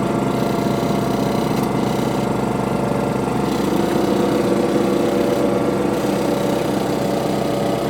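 Isuzu diesel engine of a miniature locomotive, about 80 horsepower, idling steadily while the train stands still.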